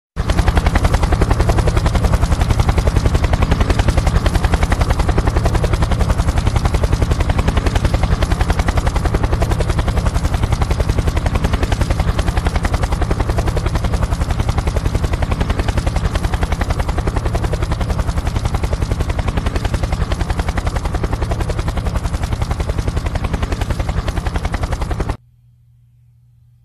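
Helicopter hovering close by low over the sea, its rotor blades making a fast, steady chop over the engine drone. The sound cuts off abruptly near the end, leaving only a faint low hum.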